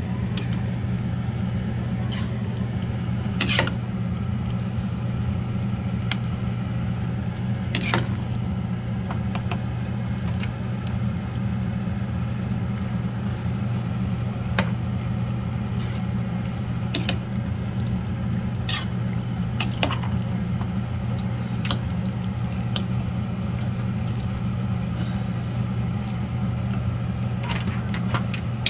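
A steady low mechanical hum, with scattered light clicks and knocks of pots and utensils.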